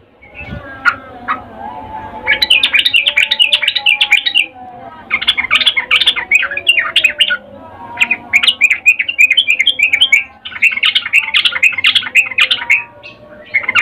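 Yellow-vented bulbul giving rapid chattering calls in four bursts of about two seconds each, with short pauses between; the title calls this the breeding-condition call of a female.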